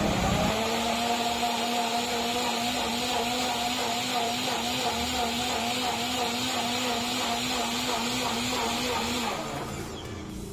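NutriBullet blender running on its high setting, pulverising oregano leaves in water: a steady motor whine with a slight warble over a broad wash of noise. It drops away near the end.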